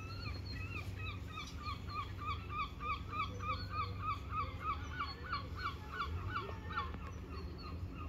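A bird calling over and over, a long run of harsh, hooked calls about three a second, swelling louder through the middle and tailing off near the end, over a steady low rumble.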